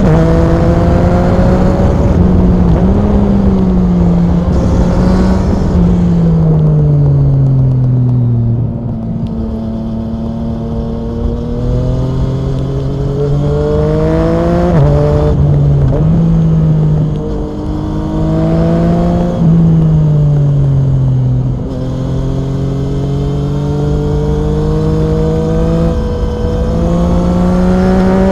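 Yamaha MT-09 SP's 847 cc inline-three through an Akrapovic Racing exhaust, pulling up through the gears with quick drops in pitch at each upshift. About seven seconds in the revs glide down on a long roll-off, then climb again through several quick shifts, with a second roll-off a little after twenty seconds before it pulls hard again near the end.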